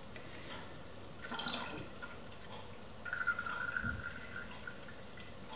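Strawberry-steeped vodka pouring from a jar through a metal mesh strainer into a tall container, trickling in two short spells, about a second in and about three seconds in.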